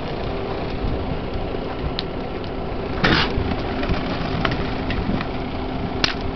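A 1960s single-wide mobile home burning, with the fire's steady rushing noise and sharp pops. About three seconds in, a loud crash as the burning structure collapses. A steady engine hum runs underneath.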